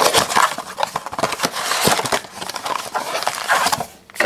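Cardboard trading-card blaster box being opened by hand and its wrapped card packs pulled out: dense crinkling and rustling of the pack wrappers and box flap, with many small clicks. A light knock near the end as the box is set down.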